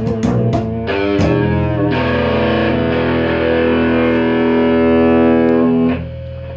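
Distorted electric guitar playing fast picked notes, then a held chord left ringing that drops away about six seconds in.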